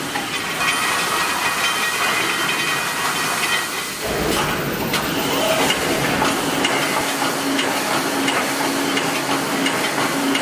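Automatic welded wire mesh fence welding machine running: a steady dense hissing machine noise, with a faint low hum from about four seconds in.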